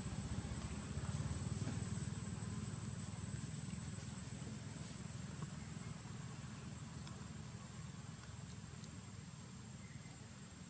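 Steady outdoor background: a low rumble with a constant high-pitched whine, and a few faint ticks.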